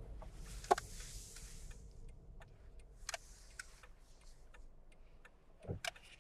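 Quiet car cabin while driving: a faint low road rumble with a few scattered light clicks and two brief soft hisses.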